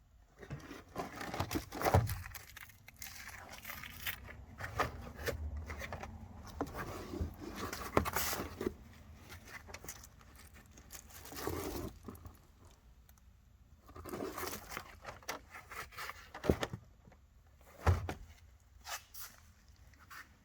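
Irregular bursts of rustling, scraping noise with scattered sharp knocks and clicks, as interior parts of a 1986 Opel Ascona are pulled loose and handled during dismantling. The sharpest knocks come about two seconds in and again near the end.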